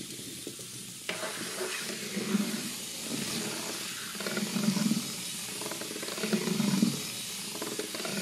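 A motorised Lego Technic car's small electric motors and plastic gears whirring in repeated bursts about two seconds apart, over a steady hiss, as it steers and drives on a smooth floor.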